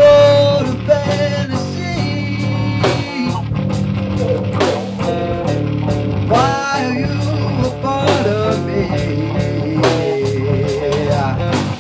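Rock band jamming: electric guitars, bass and drums, with a steady drum beat and a lead line that bends up and down in pitch.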